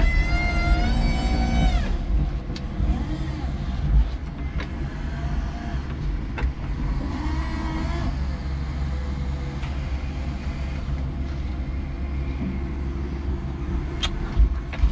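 5-ton electric forklift working under load, heard from inside its cab: a low rumble throughout, with an electric motor whine that rises and falls over the first two seconds and comes back faintly later. Several sharp clunks from the mast and forks come through, the loudest near the end.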